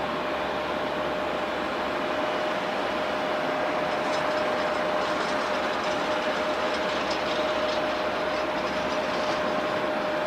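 Airbus A350 jet engines running steadily: a constant whine over a broad rush.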